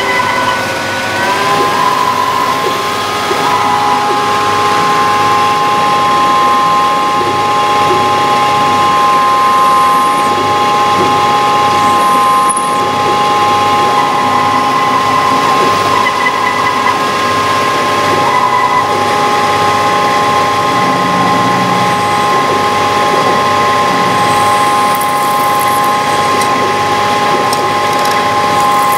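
CNC lathe running, with a steady high whine from the spindle drive over the noise of the cut. The whine shifts in pitch about a second in as the spindle speed changes, then holds steady.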